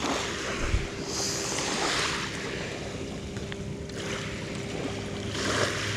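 A steady low drone, like a distant motor, with brief bursts of hissing, rustling noise about a second in and again near the end.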